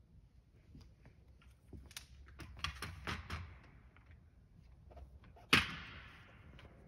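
Light clicks and knocks of a small wooden wheeled vehicle and its string being handled and wound, busiest in the middle. One sharp clack about three-quarters of the way through, echoing briefly in a large room.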